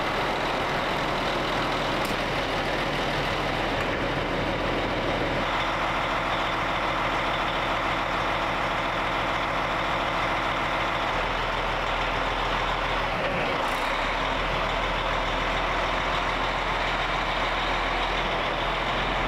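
Caterpillar diesel engine of an International semi truck, just started and idling steadily. Its note shifts about five seconds in.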